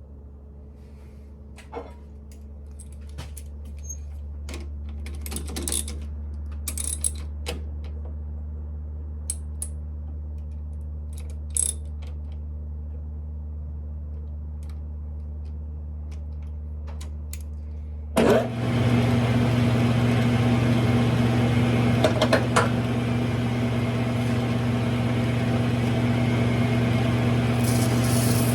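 Light metallic clicks and taps of tools and parts being handled at a Smithy lathe over a low steady hum. About two-thirds of the way through, the lathe's electric motor switches on abruptly and runs with a steady hum and hiss.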